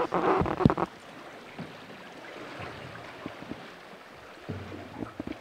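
A steady wash of lake water with wind on the microphone. A short, loud burst of clattering noise comes in the first second, and a low hum joins near the end.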